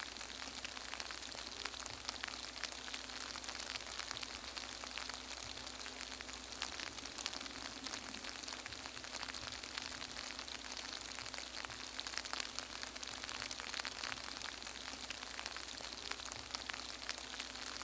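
Steady crackling hiss with many fine clicks and a faint low hum underneath.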